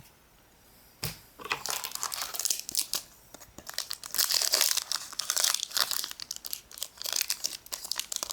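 Foil wrapper of a Pokémon trading-card booster pack crinkling and crackling as it is handled, starting with a soft knock about a second in.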